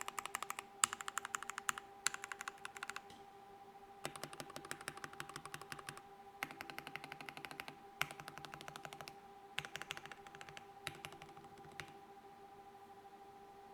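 Mechanical keyboard with a penny placed inside its case (penny mod) being typed on: fast runs of sharp key clicks, several a second, broken by short pauses, with the typing stopping near the end. A faint steady hum runs underneath.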